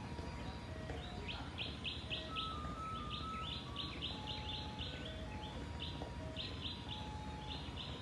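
Bird chirping in quick runs of short, high notes, starting about a second in and going on until near the end, over a faint tune of held notes.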